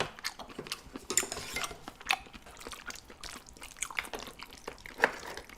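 Scattered light clicks and taps of utensils against a dish, with small wet sounds of jjajang noodles and cut octopus being handled.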